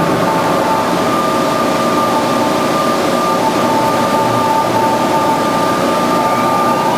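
Band saw running steadily, a constant whine over a dense machine noise.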